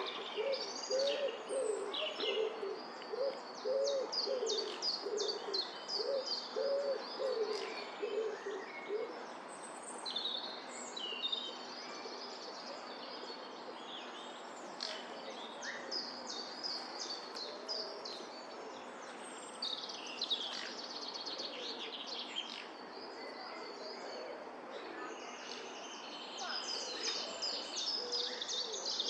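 Birdsong: a quick series of low hooting calls, about one and a half a second, for the first nine seconds or so, over many small birds chirping and singing throughout.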